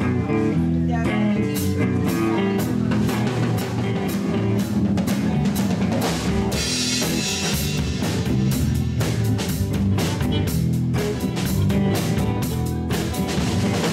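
Live rock band playing an instrumental opening with no singing: a drum kit keeps a steady beat over electric guitar and bass.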